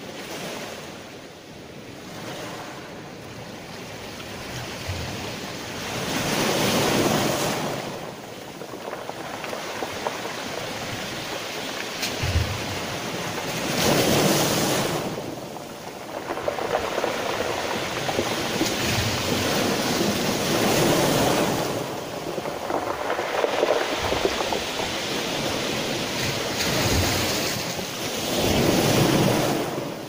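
Small sea waves breaking and washing up over a pebble beach, the surf swelling and easing, with four louder surges about seven seconds apart.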